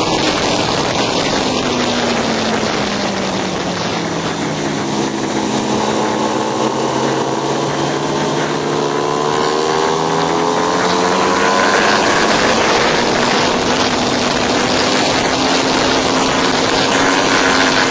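Motorcycle engine heard from on board under heavy wind rush. The revs fall smoothly over the first several seconds, climb again, and then hold fairly steady.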